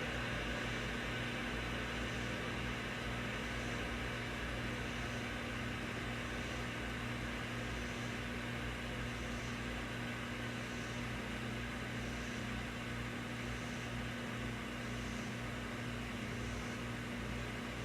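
Wurlitzer 528 tube amplifier hissing steadily over a low mains hum, with a faint high chirp repeating about every second and a half. The hiss comes on as the amp warms up and disappears when the 6J5 oscillator tube is removed, which points to the oscillator stage; the owner does not know the cause.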